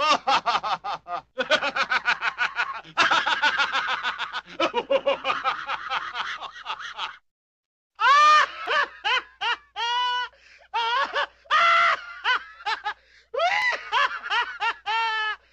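A man laughing in rapid, breathy runs of short syllables. About seven seconds in it cuts off to silence for under a second, then another laugh starts with clearer pitched 'ha' syllables that rise and fall.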